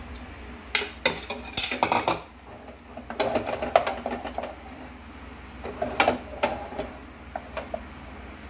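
Cooking utensils clinking and scraping against a wok as glass noodles are stirred and tossed in sauce: bursts of clicks and knocks about a second in, again around three to four seconds, and once more around six seconds, with a few lighter ticks near the end.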